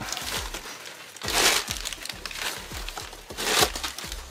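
Packing paper being rustled and crumpled by hand. There are two louder bursts, about a second and a half in and again past three and a half seconds, with small handling clicks between them.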